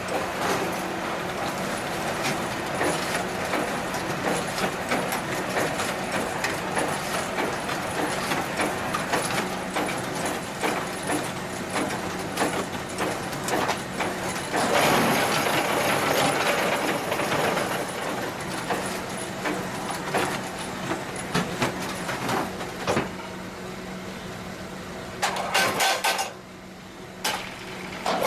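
QTJ4-25 semi-automatic concrete block machine running: a steady hum under irregular metallic knocks and clatter, with a louder stretch of noise about halfway through.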